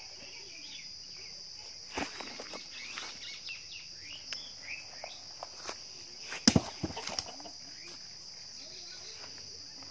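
Insects shrilling in a steady, unbroken high drone, with footsteps crunching and rustling through dry leaf litter; the loudest crunches come about six and a half seconds in.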